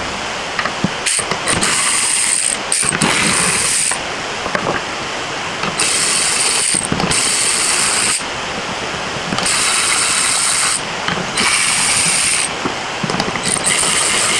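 Ratchet wrench clicking in repeated bursts of about a second or so, with short pauses between, as bolts on a Corvette headlight assembly bracket are worked.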